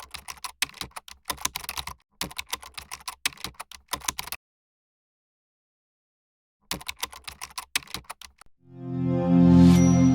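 Runs of rapid computer-keyboard typing clicks, broken by about two seconds of silence in the middle. Then, near the end, a loud musical tone swells up and holds as a sustained chord.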